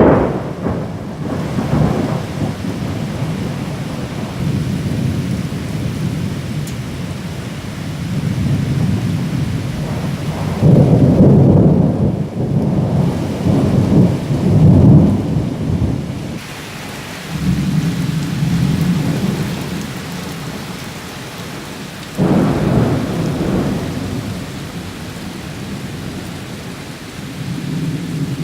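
Thunderstorm: steady heavy rain with rolling thunder. The loudest rumbles build about ten seconds in and last several seconds, and a sharper crack comes in suddenly near the end.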